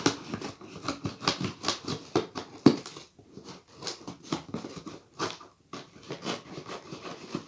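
A cardboard box and its plastic packaging being opened by hand: a quick, irregular run of rustling and crinkling.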